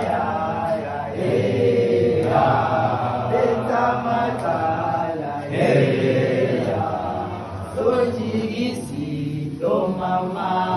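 A group of boys singing a gwijo, a South African group chant-song, together in long held phrases.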